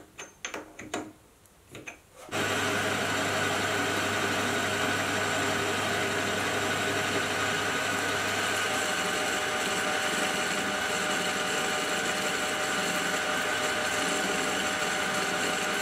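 A few faint clicks as a lathe tool post and tool holder are handled. Then, about two seconds in, a Hafco AL250G metal lathe runs steadily, taking a 0.5 mm cut on a steel bar with a carbide insert; the geared headstock gives a steady whine with several held tones.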